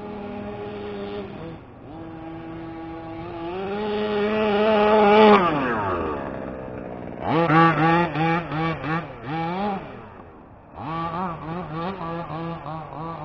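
1/5-scale gas RC truck's small two-stroke engine running at high revs. It grows louder to a peak about five seconds in as the truck passes close, and its pitch then falls away steeply. After that come a series of quick throttle blips and revs.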